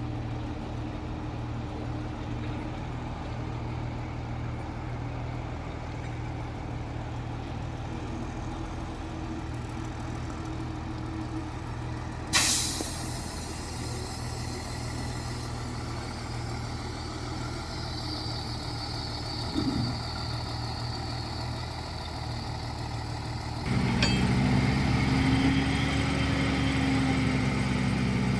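Heavy diesel earthmoving machinery running steadily. About twelve seconds in there is a sharp hiss of a truck's air brake being released. Near the end the engine note jumps louder and higher as a machine works harder.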